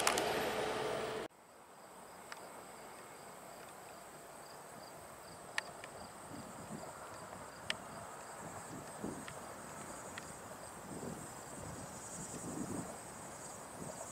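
Insects trilling steadily in a high, even tone, with a few sharp clicks scattered through. It opens with about a second of louder steady noise that cuts off suddenly.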